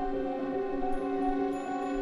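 Ambient background music: several sustained notes held steadily like a soft drone pad.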